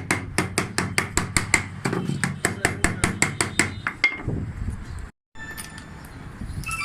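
Rapid hammer blows, about six a second for roughly four seconds, then they stop. Music starts right at the end.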